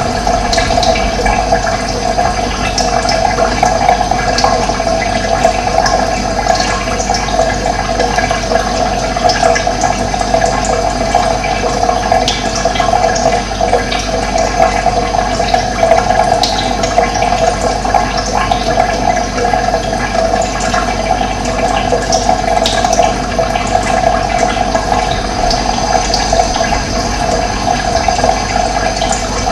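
Steady rushing of running water, with scattered short bird chirps over it.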